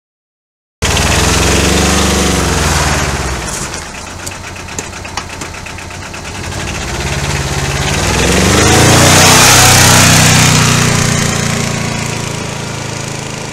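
Arctic Cat 700 diesel quad bike's twin-cylinder diesel engine running as it is ridden past on a wet road, its pitch rising and falling, with tyre hiss from the wet tarmac. It is loudest about two-thirds of the way through, then fades as the quad drives away.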